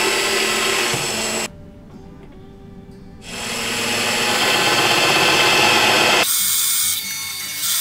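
Drill press boring into plywood: a twist bit cuts for about a second and a half, then after a quieter gap a Forstner bit bores a wide hole, its cutting noise building over a few seconds before it stops abruptly near the end.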